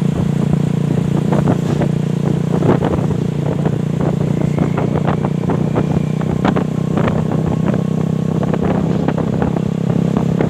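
A motor vehicle engine running steadily at a constant low pitch, with irregular clicks and knocks over it.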